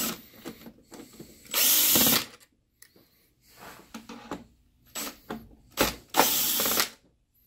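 Dry erase marker scribbling on the projector's plastic housing and mounting-bracket arm, marking where the arms sit. There are two short, squeaky rubbing strokes, one about a second and a half in and one about six seconds in, with a few light taps and clicks between them.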